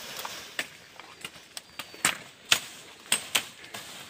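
Machete blows chopping into bamboo and brush: a run of sharp, irregular strikes, about two a second.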